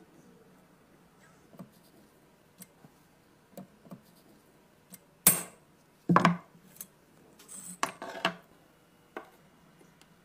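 Small metal gun parts and tools clacking and being set down on a workbench: scattered light clicks, and a few sharp clacks with a short ring about halfway through, then a brief run of rattling handling sounds.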